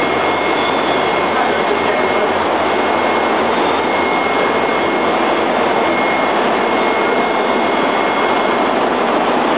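Chili sauce frying machine running: a steady, loud mechanical rushing noise with a thin constant high whine over it.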